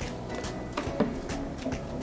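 Quiet background music, with a couple of soft squishes and clicks near the middle as pink moon dough made of hair conditioner and cornstarch is squeezed and kneaded by hand.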